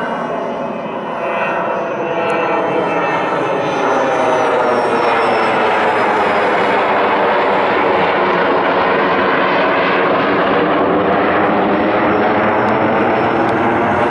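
Electric ducted-fan RC model jet (an F-22 Raptor) in flight, its 5-blade fan giving a steady, loud rushing whine. It grows louder over the first four seconds and then holds steady, its pitch wavering as the plane moves.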